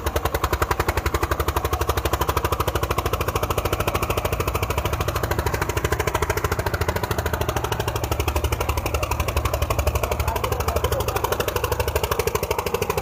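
Old Eicher tractor's diesel engine at full throttle under heavy load in a tractor tug-of-war, pounding out a fast, steady, even beat without letting up.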